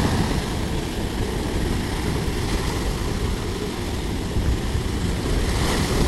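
Sea surf at the shore: a steady, loud rumbling wash of waves, with a brighter hiss as a wave breaks near the end.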